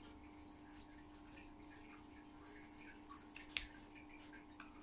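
Quiet room with a faint steady hum, and the light ticks and scratches of a hand scriber scoring a line into a plastic model panel, with one sharp click about three and a half seconds in.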